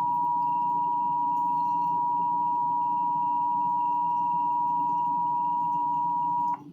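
Emergency Alert System attention signal on a TV broadcast: a steady two-note tone held without change, cutting off abruptly near the end. It announces an emergency alert, here a severe thunderstorm warning.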